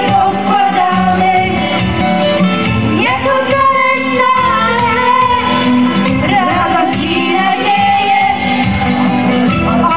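A choir of men and women singing a song together, with steady instrumental accompaniment underneath.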